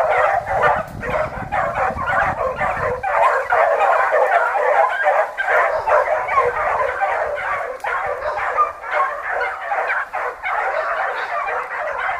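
A pack of dogs barking and yipping without a break, many voices overlapping.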